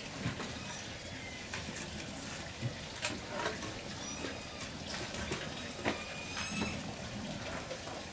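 Firewood logs knocking and scraping as they are pushed into a clay wood stove's burning firebox: a few sharp knocks over a steady hiss, with a cluster of short high chirps about six seconds in.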